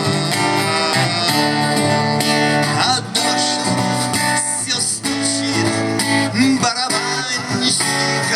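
Acoustic guitar strumming chords in an instrumental passage of a song, with steady regular strokes.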